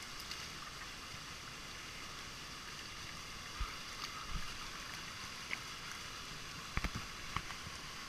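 Steady rush of shallow water running over rocks below a small waterfall, with a few short sharp knocks, a quick pair of them about seven seconds in.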